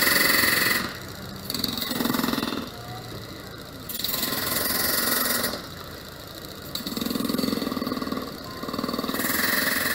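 Small-engined track power tool working on the steel rail, its engine revving up in bursts of a second or so about every two seconds, with a hissing grind in each burst.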